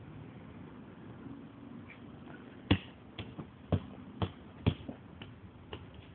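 A football being juggled: about seven sharp touches of foot on ball, roughly two a second, beginning a little before halfway through. The first touch is the loudest.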